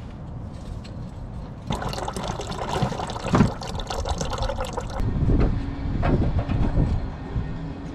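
Liquid splashing or rushing for about three seconds, starting about two seconds in, then in short spurts.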